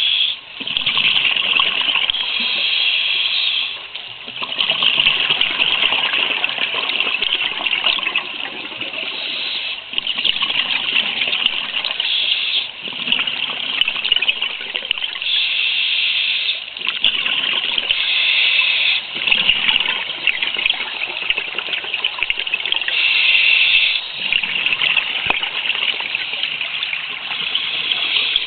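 Scuba diver's regulator breathing underwater: hissing breaths and bubbling exhalations that come in cycles of a few seconds.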